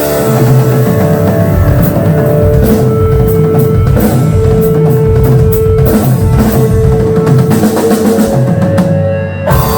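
Live rock band playing an instrumental passage: drum kit beating steadily under electric guitar holding long notes.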